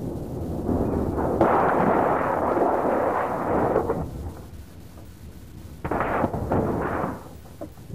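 Toyota Hilux pickup tumbling over and over at about 80 km/h during a rollover test. A loud rushing, scraping noise as it hits and slides along the dirt is followed, about six seconds in, by several sudden heavy crashes as the steel body slams into the ground.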